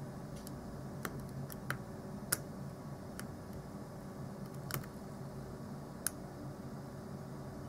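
Hook pick clicking against the pin stack of an American Lock 5200 padlock during single pin picking: about eight sharp, irregular clicks spread through the stretch, over a steady low hum.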